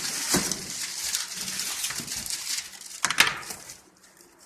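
Cardboard box, foam and plastic packaging rustling and crinkling as the RC truck is unpacked, with two sharper handling knocks, about half a second in and just after three seconds.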